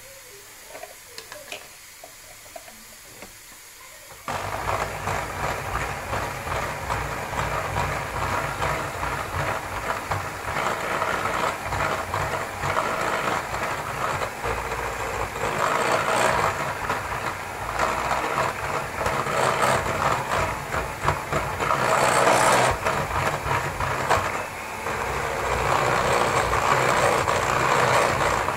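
Electric hand mixer switched on about four seconds in and running steadily, its beaters whisking eggs and sugar in a glass bowl.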